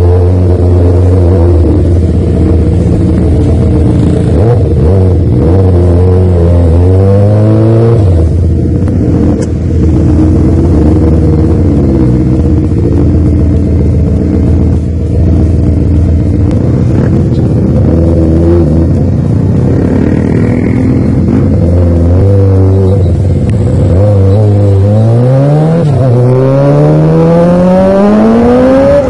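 The 2005 Yamaha R6's 600 cc inline-four engine runs as the bike is ridden. It revs up twice with a rising pitch, about five seconds in and again near the end.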